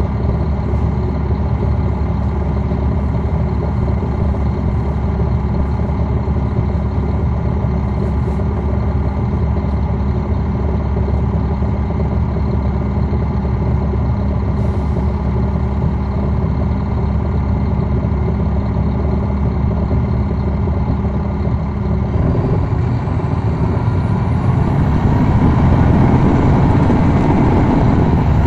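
Caterpillar C13 ACERT diesel engine of a 2009 NABI 416.15 transit bus idling steadily, heard from the rear seats inside the bus. About 22 seconds in, the engine picks up and gets louder as the bus pulls away, with a rising whine.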